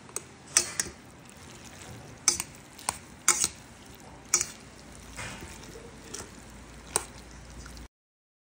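Metal chopsticks mixing dressed noodles in a stainless steel bowl: a soft wet stirring sound broken by about eight sharp clinks of the chopsticks against the bowl. The sound cuts off abruptly near the end.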